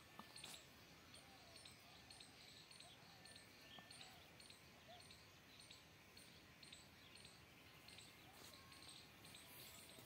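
Quiet outdoor ambience with a faint high chirp from a small animal, repeated evenly about two to three times a second, and a few soft, faint calls lower in pitch.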